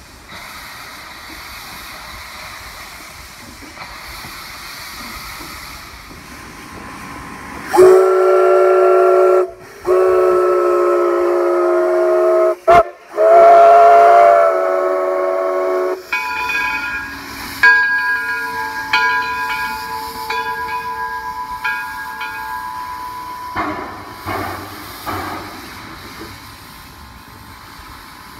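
Steam locomotive hissing steadily, then a loud multi-note chime steam whistle sounding three long blasts about eight seconds in. A higher, quieter steam whistle follows with a string of short toots, and steam hisses from the cylinder cocks near the end.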